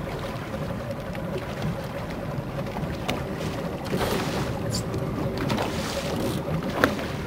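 Wind blowing on the microphone over open water, with a faint steady hum underneath. A single sharp click comes near the end.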